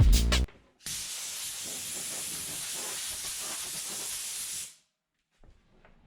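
Steady hiss of compressed air from an air nozzle, running for nearly four seconds and cutting off sharply; a few bars of background music end just before it.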